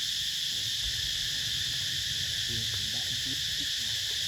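Steady insect chorus, a continuous high buzz with no breaks.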